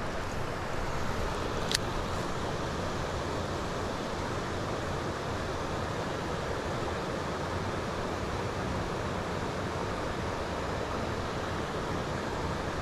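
Steady rushing outdoor noise of wind or moving water, with a single sharp click about two seconds in.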